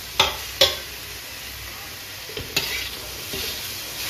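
Chopped vegetables frying in oil in a steel kadhai with a steady sizzle, as boiled potato cubes are tipped in and stirred. Two sharp clinks against the pan within the first second, and a steel spatula scraping and clinking through the mix from about two and a half seconds in.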